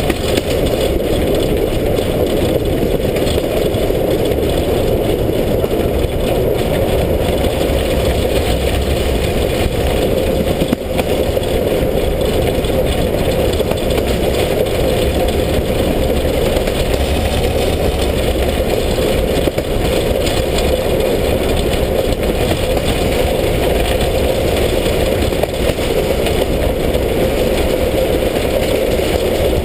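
Steam locomotive 33-037, a former Yugoslav class 33 2-10-0, running along the line, heard close up from the side of the engine: a loud, steady rush of exhaust and running-gear noise.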